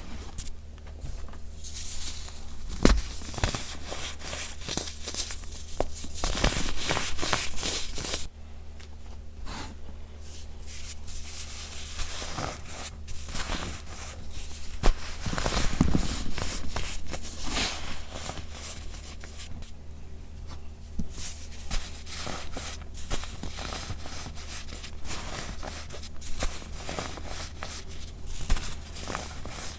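Gritty baking soda powder squeezed and crumbled by hand, giving a dense, irregular run of squeaky, crunchy crackles.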